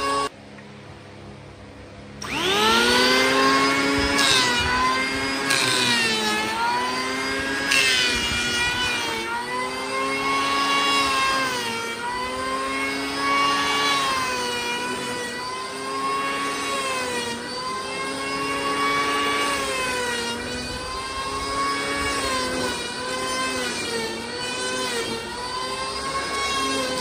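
Corded electric hand planer spinning up about two seconds in after a brief lull, then running under load on a solid-wood slab. Its pitch sags each time the blades bite into the wood and climbs back as the pass eases, about every two seconds.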